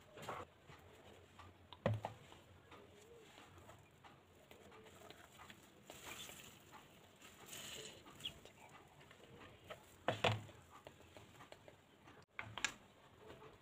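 Faint kitchen handling: four soft knocks as a plastic colander and pieces of fried tofu are set down and moved on a bamboo cutting board on a tiled counter, with quiet rustling between.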